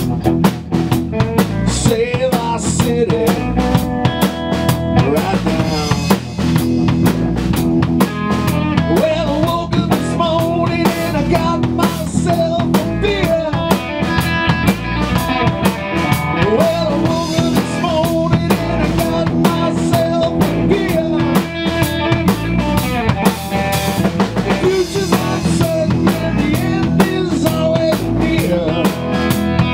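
Band music with a drum kit playing a steady beat of kick and snare under sustained bass and guitar-like notes.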